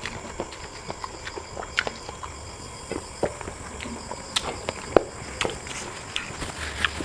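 Close-miked eating of spicy chicken feet: irregular chewing, lip-smacking and sucking clicks, a few louder snaps about five seconds in.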